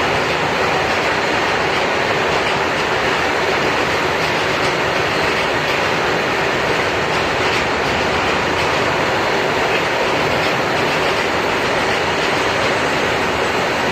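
Freight train wagons rolling past on the rails: a steady, loud rush and rattle of steel wheels on track.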